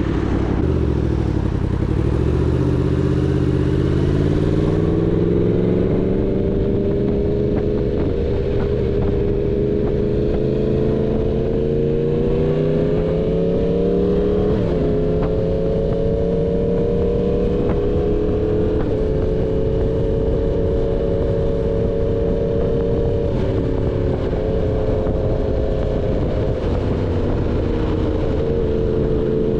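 Yamaha MT-10's crossplane inline-four engine running through an SC Project full-system exhaust while the bike is ridden. The note drops briefly at the start, climbs steadily over the next few seconds, then holds at moderate revs with a few brief dips in pitch and a slow rise in the middle.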